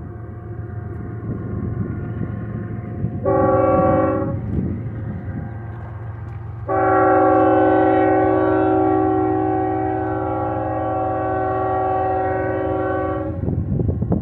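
Multi-chime air horn on the lead GE locomotive of an approaching Union Pacific freight train: a short blast about three seconds in, then one long blast of about seven seconds, over the train's low, steady rumble.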